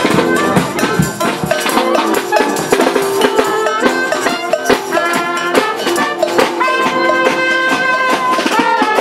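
Marching brass band (fanfare) playing a lively tune: sousaphones, saxophones, trombone and clarinet over bass drum and snare drum beats.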